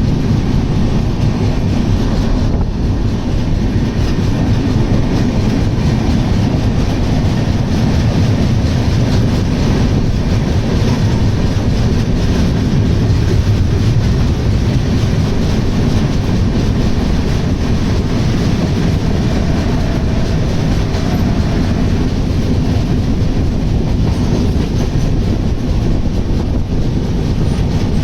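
Passenger train running through at speed: a steady, loud rumble of wheels on the track with a continuous clatter over the rail joints.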